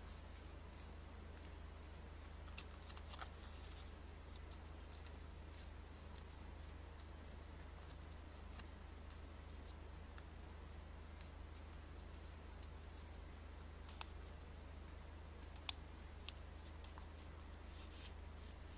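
A crisp Russian 2000-ruble banknote being folded and pinched into shape by hand: faint paper rustling with scattered sharp crinkles and clicks, the sharpest about three-quarters of the way through, over a low steady hum.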